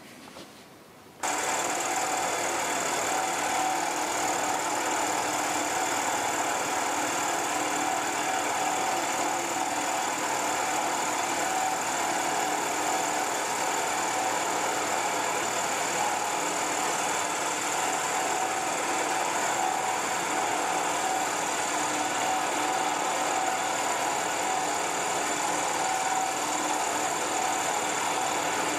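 Milling machine with a 12 mm end mill taking a 6 mm deep slotting cut in 4140 steel: a steady machining noise with a steady high tone, starting abruptly about a second in.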